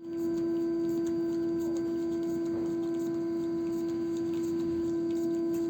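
A steady pitched hum with a few overtones, holding one pitch without change.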